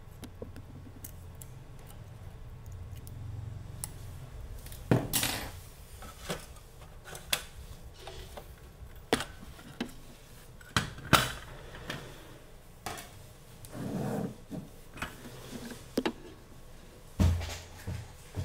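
Irregular knocks and clinks of a circuit board and small metal tools being handled and set down on a workbench, with a low hum in the first few seconds.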